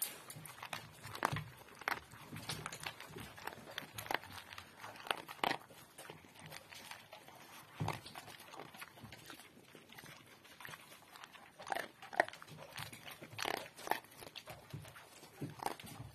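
A dog eating greedily from a bowl: irregular chewing, smacking and crunching, with sharper smacks in clusters.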